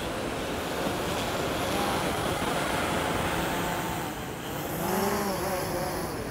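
DJI Phantom quadcopter's propellers and motors buzzing as it hovers close by and moves off, the pitch wavering down and back up about five seconds in.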